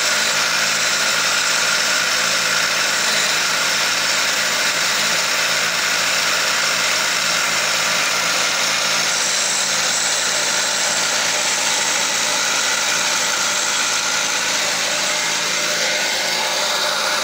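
Motor-driven wood lathe running steadily while a hand-held chisel cuts a spinning wooden spindle: a continuous, even hiss of cutting over the machine's hum.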